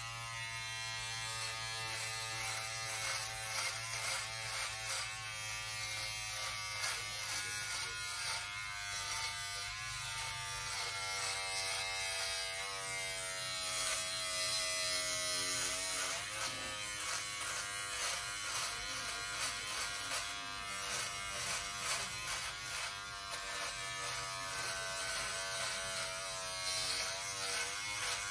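Braun 6-in-1 electric shaver running with a steady buzz, its pitch wavering slightly now and then.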